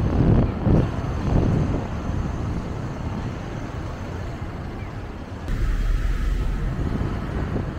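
Steady road and traffic noise from a car driving through city streets, with a few low gusts of wind on the microphone in the first couple of seconds. About five and a half seconds in, the sound changes abruptly to a deeper, louder rumble.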